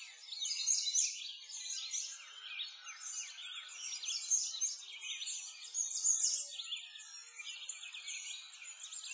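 Chorus of many small songbirds chirping and twittering, quick high chirps and trills overlapping without a break.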